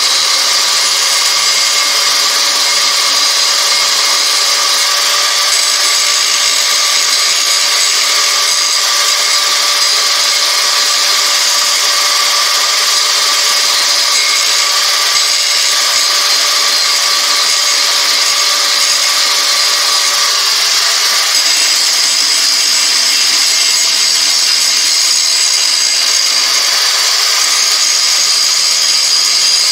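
Handheld angle grinder running steadily, its abrasive disc grinding a high-carbon steel file clamped in a vise, with a high motor whine over the grinding hiss. This is the rough shaping of a knife blank's outline from the old file.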